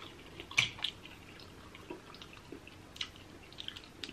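Close-miked wet chewing and lip smacking of a person eating seafood in butter sauce, with a few sharp clicks, the loudest about half a second in and another near three seconds.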